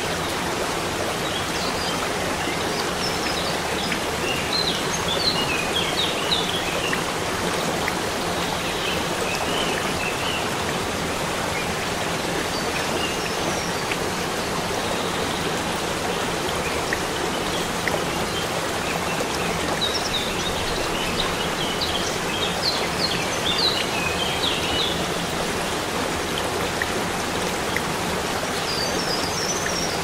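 Waterfall of many thin streams spilling over a mossy rock face, a steady rushing, splashing hiss of falling water. A small bird twitters in short runs of quick high notes several times, most busily about twenty seconds in.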